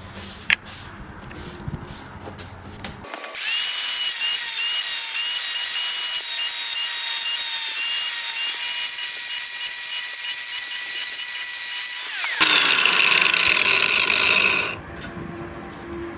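Electric angle grinder with a thin cutting disc cutting into the metal body of a satellite LNB. It starts suddenly about three seconds in with a loud high whine over a grinding hiss, runs steadily, changes note about twelve seconds in and stops a little before the end.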